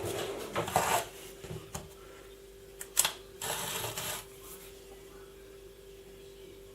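A metal folding multitool being handled: scattered clicks and rustles, a sharp click about three seconds in, then a short rustle of under a second. A faint steady hum runs underneath.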